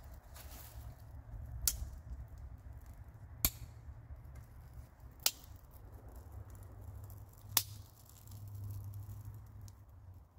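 Four sharp, isolated ticks about two seconds apart over a low steady rumble.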